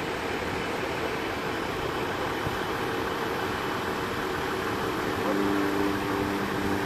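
Steady engine noise under a rushing hiss, with a louder pitched hum setting in about five seconds in.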